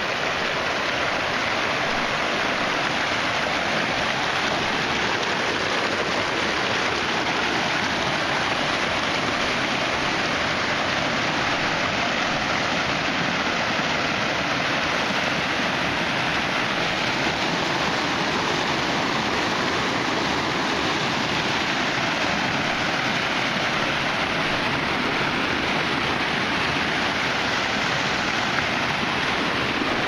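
Stream water rushing and splashing over rocks in small cascades, a steady, unbroken rush of white water.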